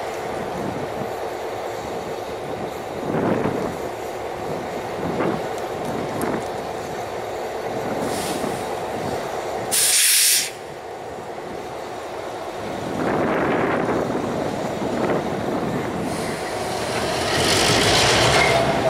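Diesel-hauled freight train rolling slowly through a road crossing: the locomotive's engine running under irregular wheel knocks on the rails, with a short sharp hiss about ten seconds in. Near the end the engine grows louder as the locomotive works harder, putting out exhaust smoke.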